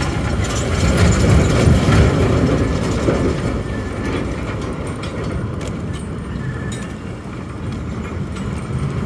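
Road traffic heard from a moving rickshaw: a steady rumble of engines and tyres with scattered rattling clicks. The rumble swells louder for a couple of seconds about a second in, then settles.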